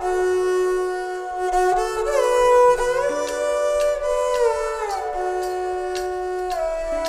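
Background music: a slow melody of long held notes that slide from one pitch to the next, with a few soft clicks.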